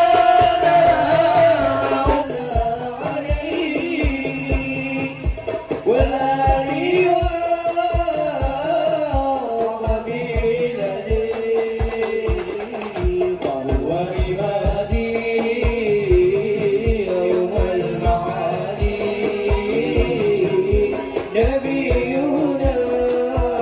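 A hadrah group performing: several men's voices singing a devotional song into microphones over rebana frame drums keeping a steady beat of about two strokes a second.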